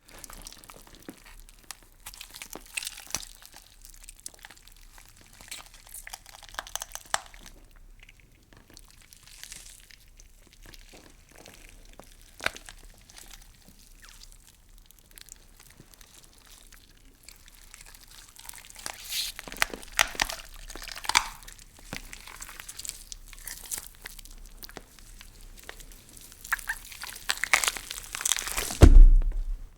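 Horror Foley effect of wet meat being twisted: sticky squelches and crackling crunches, sparse at first, then louder and denser in the second half, ending in a heavy low thud.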